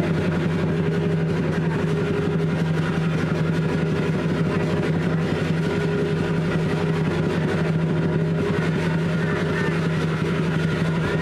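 An engine running steadily, giving a constant low hum that holds one pitch throughout.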